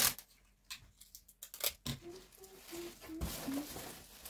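Wrapping paper rustling and tearing in short bursts, followed by a few soft hummed notes that step up and down in pitch and a single low thump.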